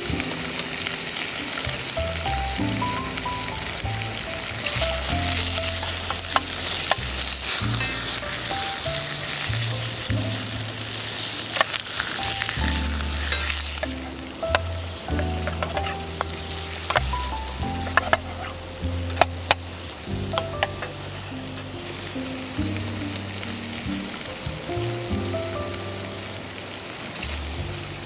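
Food sizzling in a frying pan, loudest through the first half, then a handful of sharp taps and clicks as it is stirred, over background music with a slow melodic bass line.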